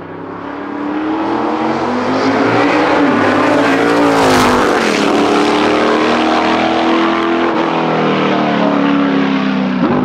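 McLaren M8E Can-Am car's 7.2-litre V8 accelerating hard past the listener. The engine note climbs over the first few seconds, drops in pitch as the car goes by about four seconds in, and stays loud and steady as it pulls away.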